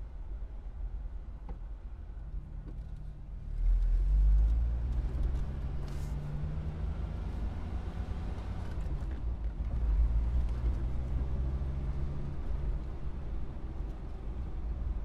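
Car engine pulling away. A few seconds in it gets louder and its pitch rises as it accelerates, with a second surge about two-thirds of the way through. The engine note then fades, leaving a low rumble.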